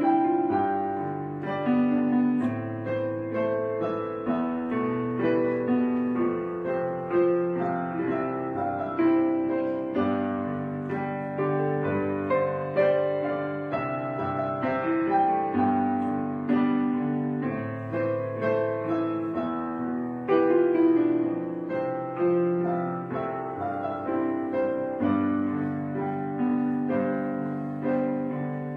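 Solo piano music, a slow, gentle piece of notes struck one after another and left to fade.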